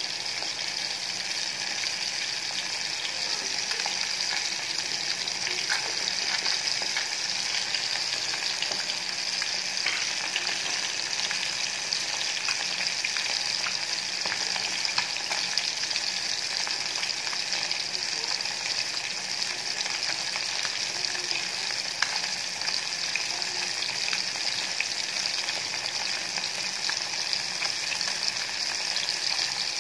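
Coated tilapia (jilebi fish) pieces shallow-frying in hot oil in a steel pan: a steady sizzle with faint, scattered small crackles.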